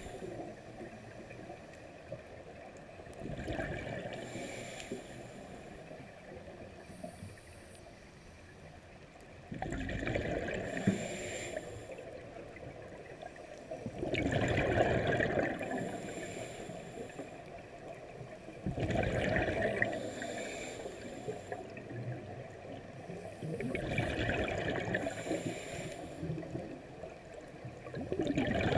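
Scuba diver breathing through a regulator close to the camera, heard through the underwater housing: a bubbling exhale burst about every five seconds, six in all, with a quieter wash of water between.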